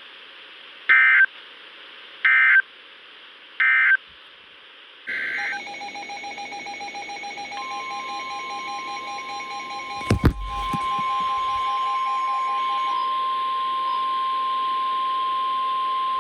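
NOAA Weather Radio SAME digital data bursts: three short bursts marking the end of one alert, then a longer header burst about five seconds in. A receiver then beeps in a pulsing alert, and from about seven and a half seconds in the weather radio's steady single-pitch attention tone sounds, with a brief thump about ten seconds in.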